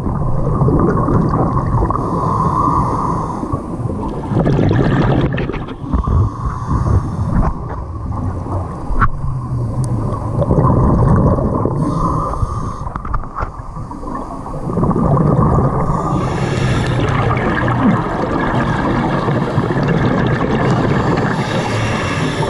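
Scuba diver breathing through a regulator, heard underwater: bubbling, rushing exhalations that come in repeated surges every few seconds.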